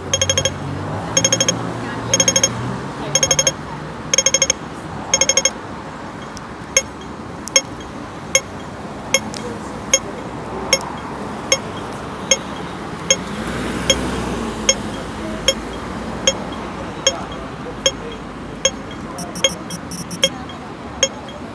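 Hong Kong pedestrian crossing signal's audible ticker. For about the first five seconds it gives short bursts of rapid ticks about once a second as the walk phase runs out. It then switches to single ticks a little more than once a second, the slow tick of the red 'don't walk' phase.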